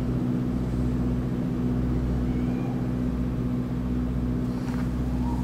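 Steady low rumble and hum of a vehicle engine heard from inside its cabin, with a constant droning tone over it.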